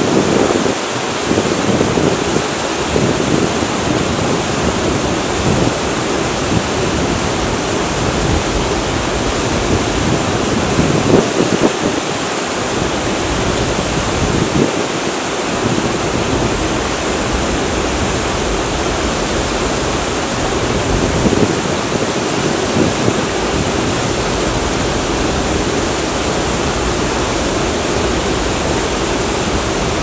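Small waterfall spilling over a rock ledge into a shallow creek: a steady, even rush of falling water.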